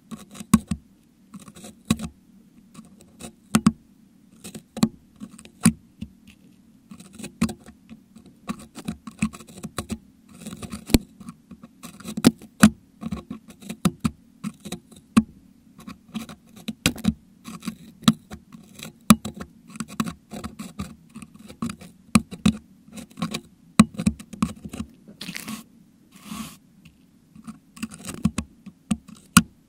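Metal dental hook picking and scraping at a Blue Yeti microphone's grille packed with crushed meringue: an irregular run of sharp clicks, taps and short scratches, picked up right at the microphone.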